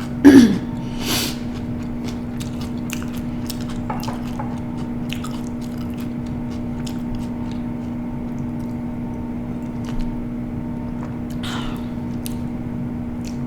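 Close-miked chewing of a mouthful of food with crunchy chips mixed in. There is a loud bite right at the start, then scattered crisp crunches and mouth clicks. A steady low hum runs underneath.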